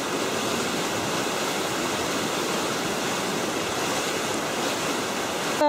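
Rain-swollen river in spate, brimming over its banks among trees: a steady rush of fast-flowing water. A brief loud pitched sound cuts in at the very end.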